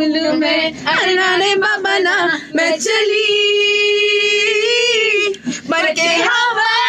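A woman singing without accompaniment, sliding between notes and holding one long note in the middle, then starting another held note near the end.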